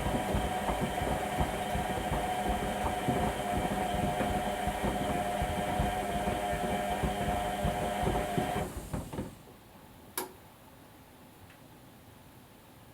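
Whirlpool front-loading washing machine's motor turning the drum in a wash tumble, a steady motor whine with irregular knocks of the ducks and wet load tumbling inside; the drum stops about nine seconds in, followed by a single sharp click.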